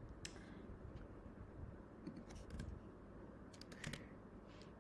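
Faint, sparse clicks of a computer keyboard being typed on: a few keystrokes in small clusters.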